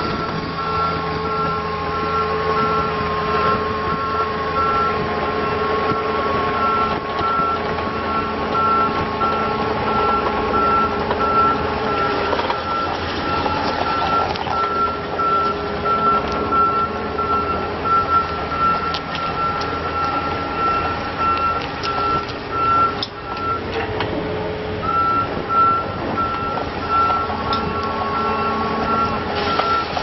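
2013 Takeuchi TB153FR mini excavator's diesel engine running as it travels on its rubber tracks, with its travel alarm beeping rapidly and evenly. The beeping breaks off briefly about three-quarters of the way through.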